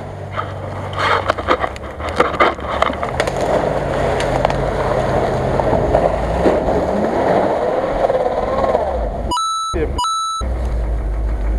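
A Land Rover Discovery off-roader driving through muddy water, its engine working under load while the tyres churn and splash water and mud. Sharp knocks come in the first few seconds, and the engine revs up about two-thirds of the way through.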